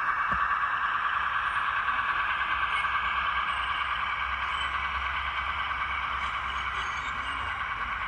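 Diesel engine sound of a Heljan Class 15 model locomotive, played by its Zimo sound decoder through a small onboard speaker from recordings of a real Class 15. It runs steadily with an even rhythmic pulse and fades slightly toward the end.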